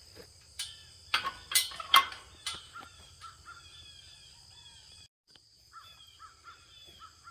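A few sharp knocks in the first two and a half seconds, then a bird calling over and over in short descending notes, over a steady high drone of insects.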